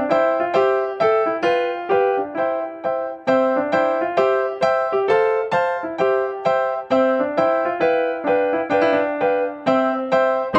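Background music: a piano melody of struck notes, each dying away, at a steady pace of about three notes a second.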